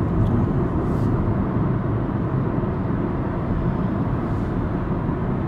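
Steady low road noise of a car driving at highway speed, heard inside the cabin: tyre and engine noise with no change in pace.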